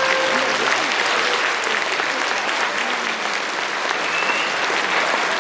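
Audience applauding steadily, with the last held trumpet note dying away in the first half second.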